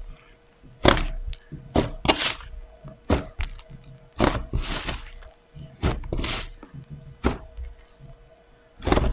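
Pink clay slime with jelly cubes mixed in, pressed and folded by hand, its trapped air popping in about a dozen sharp crackles at irregular intervals, a few drawn out into short sizzling crackles.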